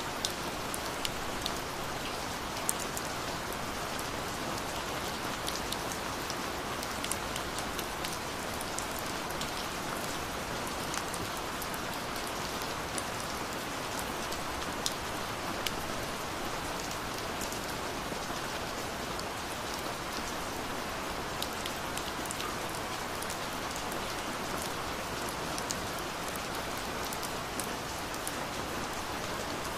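Steady gentle rain falling: an even hiss with scattered close drops ticking now and then.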